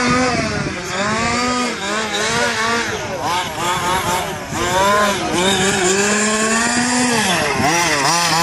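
Losi 5ive-T 1/5-scale RC truck's two-stroke petrol engine being driven hard, its pitch rising and falling again and again as the throttle is opened and closed through the corners.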